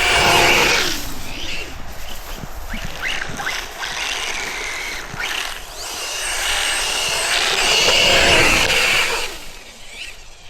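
Electric 1/8-scale RC buggy, a Hobao Hyper VS2 on 3D-printed paddle tires, driving through snow. Its motor whine rises and falls in pitch as it speeds up and slows, with the paddles churning snow. It is loudest at the start and again about eight seconds in.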